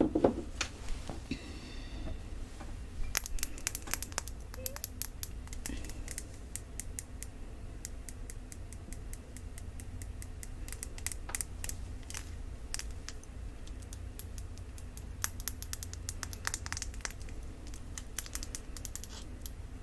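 Fingernails tapping and scratching on a glass cologne bottle, crisp taps coming in quick clusters, with a brief ringing note from the glass about a second and a half in.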